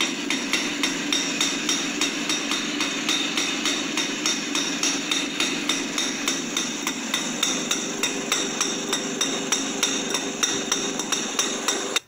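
Yezdi Roadking's single-cylinder two-stroke engine idling, its exhaust popping in an even beat of about five pops a second. The sound is thin, with no bass.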